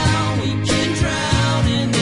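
Background music: a song with a drum beat and a melodic line, with no words.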